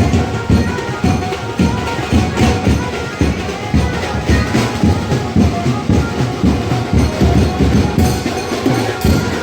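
Loud Ganpati procession music: drums beating a fast, driving rhythm under a held melody.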